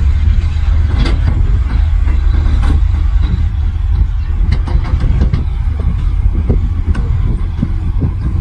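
Heavy earthmoving machine's diesel engine running steadily with a deep rumble, with scattered short knocks and clanks over it.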